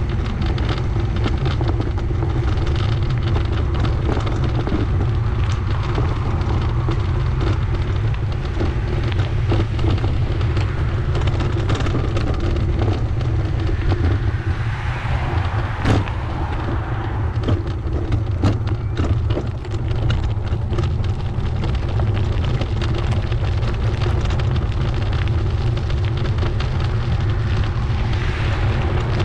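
Wind buffeting the microphone of a camera on a moving bicycle: a steady low rumble mixed with tyre and path noise, with scattered small clicks and knocks and one sharper knock a little past halfway.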